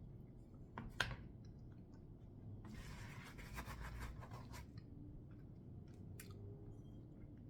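Small handling noises while eating: a sharp tap about a second in, about two seconds of scratchy scraping from about three seconds in, and another short tap a little after six seconds.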